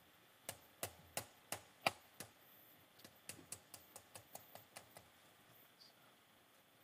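Faint taps of a surgical mallet on the inserter handle, gently impacting a 3.5 mm self-punching PushLock anchor into bone: six light taps about a third of a second apart, then a quicker run of about ten fainter taps, roughly five a second.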